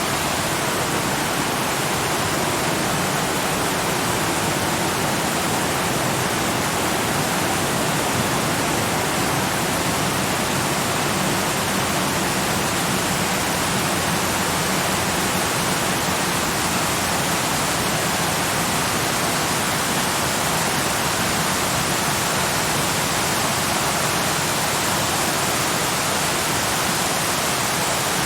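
Waterfall: falling water rushing in a steady, even hiss that does not change.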